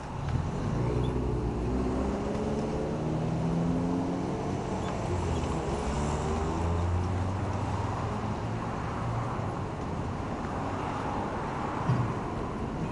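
A motor vehicle engine running close by, its pitch wavering up and down, fading after about ten seconds, over steady road traffic noise. A short knock near the end.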